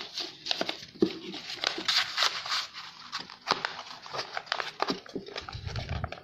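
A sheet of A4 paper being rolled tightly by hand into a tube: irregular rustling and crackling of the paper, with sharp little clicks as it is pressed and turned.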